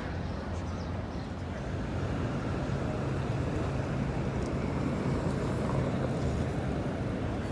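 Steady low rumble of a running vehicle, growing a little louder about two seconds in.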